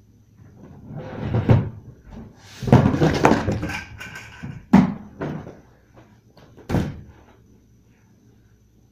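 Plastic storage tubs being lifted, shifted and set down: a scraping shuffle about a second in, a longer loud rumbling scrape around three seconds in, then two sharp hollow knocks, about five and seven seconds in.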